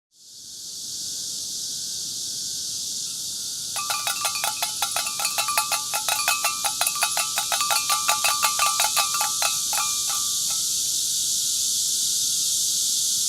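A steady high hiss, joined about four seconds in by a rapid run of bright metallic clinks with a ringing pitch, several strikes a second, that stops about ten seconds in. The clinking is an old Beijing summer drink hawker's bingzhan, a pair of small brass bowls struck together to advertise cold sour plum drink.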